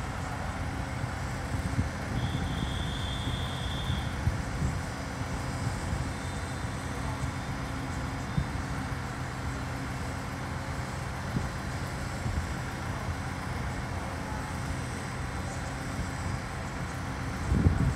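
Diesel engines of a Taiwan Railways DR3000-series diesel multiple unit idling at the platform: a steady low rumble. A thin high steady tone sounds for about two seconds, starting two seconds in, and the rumble swells briefly near the end.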